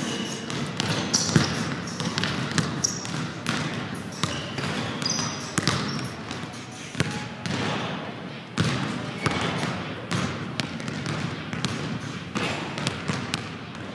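Basketballs bouncing on a hardwood gym floor, irregular thuds several times a second, echoing in the large hall.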